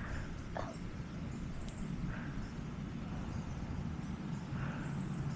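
Quiet outdoor background: a steady low rumble with a few faint, short high chirps.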